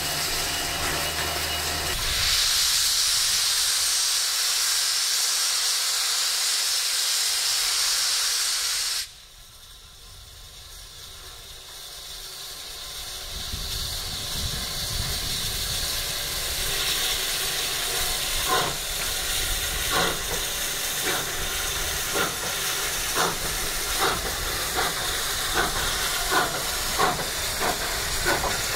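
Steam locomotive hissing loudly, the hiss stopping abruptly about nine seconds in. It then starts away with exhaust chuffs that come steadily quicker over the hiss of steam from its cylinders.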